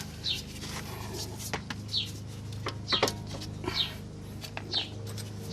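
Sharp metallic clicks and knocks from hand tools working on a disc brake caliper, loudest about three seconds in. Under them, a bird repeats a short falling chirp about once a second over a steady low hum.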